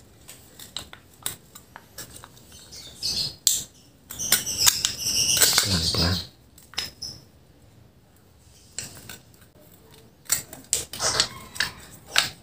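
Thin aluminium drink-can metal clicking and crinkling under the fingers as a tissue wick is worked into a hole in it, with a longer, louder stretch of rustling and scraping midway.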